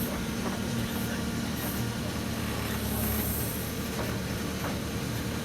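Case 770FX backhoe loader's diesel engine running steadily while working, with a couple of brief high hisses.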